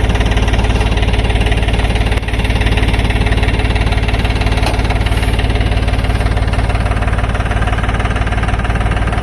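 Diesel engine of heavy machinery running steadily, with an even low throb.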